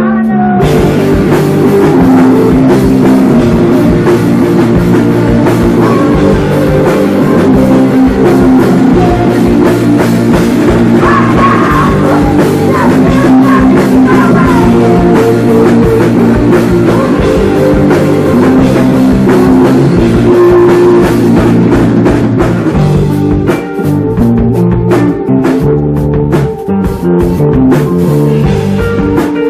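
Rock band playing loudly live: electric guitar and drum kit.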